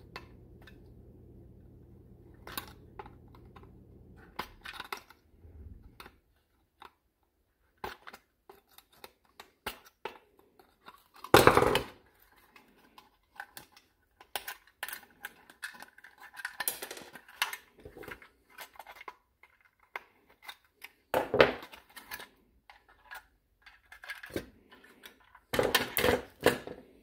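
Hard plastic and small metal parts clicking, tapping and clattering on a workbench as a screwdriver pushes the coil connectors out of a GM HEI distributor cap. There is a louder knock near the middle, another about four fifths of the way in, and a quick run of knocks near the end.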